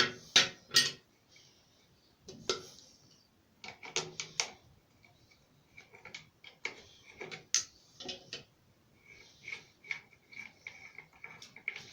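Tap valve cartridge being unscrewed from a mixer tap: irregular metallic clicks and knocks, with short thin squeaks as the threads turn.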